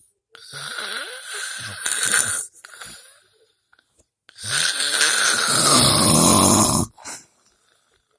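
Loud snoring in long drawn breaths, one starting about half a second in and another about four and a half seconds in, each with a whistling note running through it.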